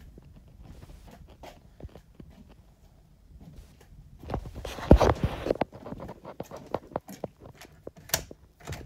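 Footsteps and scattered knocks and rustles from a hand-held phone being carried. The loudest knocks come in a cluster about four to six seconds in.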